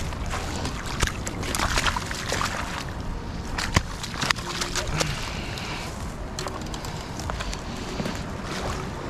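Steady rush of turbulent river water below an opened dam, with low wind rumble on the microphone and scattered knocks and thumps from handling fish on the bank.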